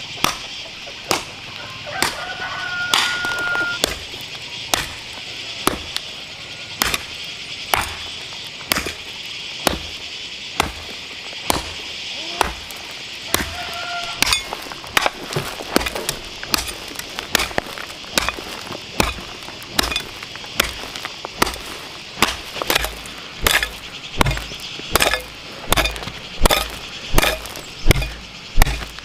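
Hoe blade chopping into hard, stony dirt, one strike about every second, quickening in the second half with heavier thuds as the soil breaks up.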